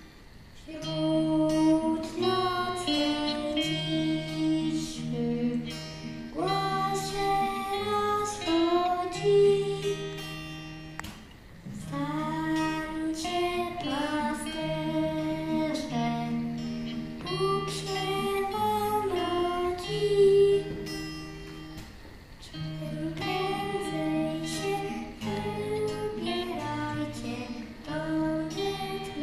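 Live music: strummed acoustic guitar with a sung melody, over a low bass line of held notes.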